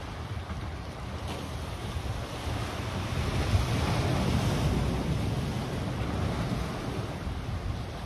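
Small ocean waves washing against a rock breakwater and sand. One wave swells louder near the middle and then slowly eases off.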